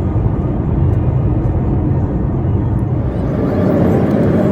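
Steady road and engine noise heard inside a moving car's cabin. The deep rumble eases about three seconds in.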